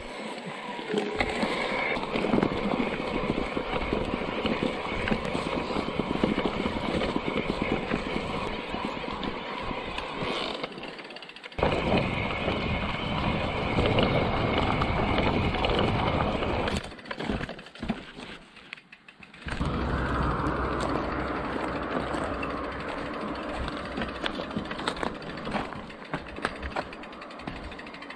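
Electric mountain bike ridden over the gravel and sleepers of a disused railway track: tyres rolling and the bike rattling and jolting continuously, briefly quieter about two thirds through.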